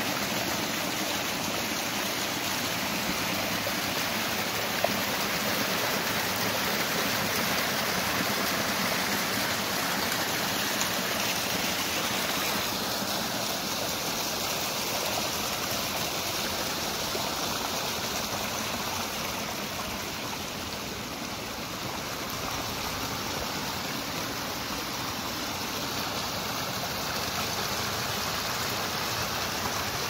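Small mountain stream running and splashing over mossy rocks in a steady rush of water, easing slightly a little past the middle.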